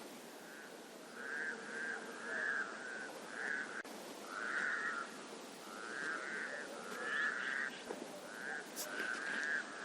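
Frogs croaking: a continuous run of short calls, about two a second, over faint background hiss.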